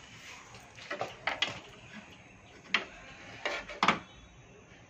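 Irregular sharp clicks and light knocks, six or so, from an inverter circuit board and small metal tools and parts being handled, with the loudest pair near the end.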